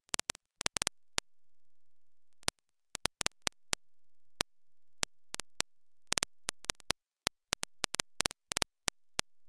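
Sharp clicks at irregular intervals, often several in quick succession, with dead silence between them and no steady machine running sound.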